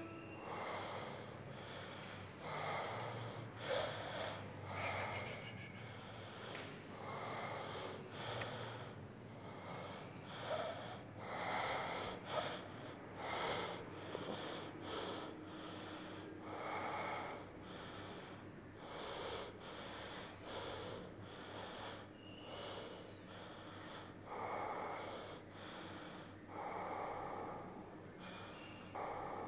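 A man breathing heavily and unevenly, with short audible puffs of breath about every second or so.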